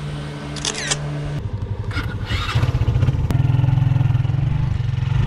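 A vehicle engine running steadily, growing louder about two and a half seconds in as it picks up speed. Two brief high chirps sound over it in the first couple of seconds.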